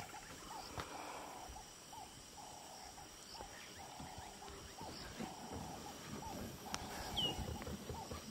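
Distant impala alarm calls: a faint run of short, repeated calls over quiet evening bush, with one brief high chirp near the end.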